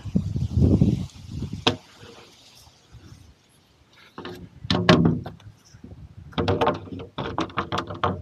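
Handling noise from the aluminium-framed panes of a raised-bed cover: bursts of knocking and rattling. There is a low rumble in the first second, a sharp click just before two seconds in, and a dense run of rattles in the last two seconds.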